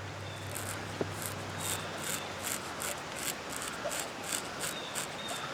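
Freshly sharpened knife blade shaving hair off a forearm: a run of short, crisp scraping strokes, about two or three a second, with a single click about a second in.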